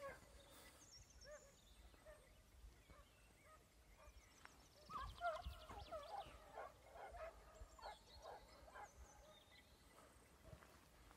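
Faint, distant Plott hounds baying on a hare's trail: a run of short, bending yelps and bays, loudest about five seconds in and continuing to about nine seconds.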